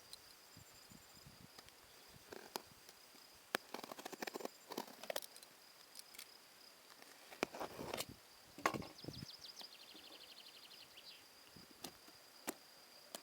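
Hands handling a small boxed product and its packaging: scattered clicks, taps and rustles, then a quick run of fine ticks a little past the middle, over a steady high-pitched whine.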